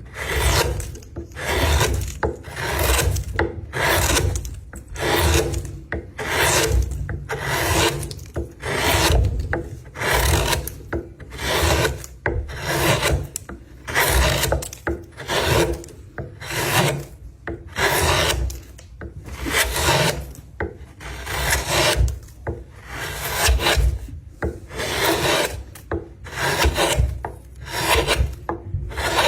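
Wood being worked by hand with repeated back-and-forth abrasive strokes, about one and a half a second, a steady scraping rhythm.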